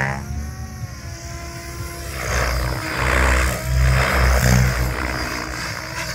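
Tron 7.0 electric RC helicopter in flight: a whine that falls in pitch in the first second or so, then repeated whooshing swells from the rotor blades as it flies low manoeuvres.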